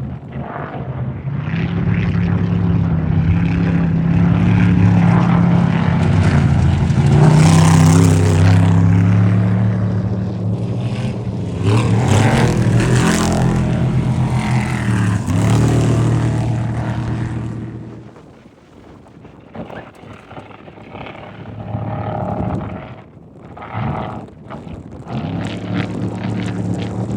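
Off-road race vehicle engines running hard as the vehicles pass close. The sound swells twice, then falls away about two thirds of the way in, with fainter engines after that.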